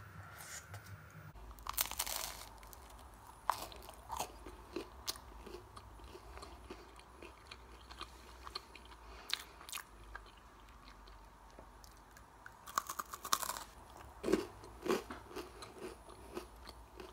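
Close-up chewing and biting of a slice of reheated pizza right at the microphone, irregular wet mouth clicks and crust crunches, with louder clusters about two seconds in and again near the end.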